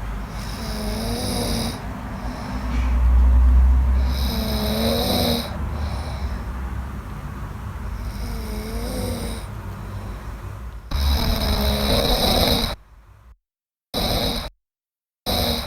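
A man snoring loudly in his sleep, with a long snoring breath every three to four seconds. Near the end the recording is chopped into short bursts with dead silence between them.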